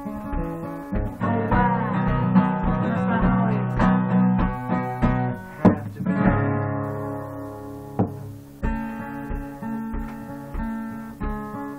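Acoustic guitar played solo, picked notes and strums over a steady low thump keeping time. A busier passage of bending, gliding notes comes in the first half, then a couple of hard strums ring out.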